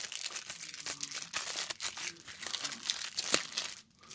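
Crinkling of a trading-card booster pack's foil wrapper as the cards are handled: a dense, crackly rustle that stops abruptly near the end.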